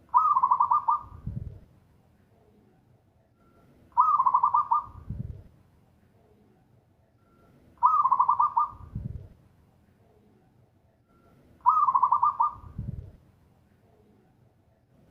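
Zebra dove (perkutut) singing loudly. It gives four cooing song phrases about every four seconds, each a quick trilled run of notes with a fainter, lower tail.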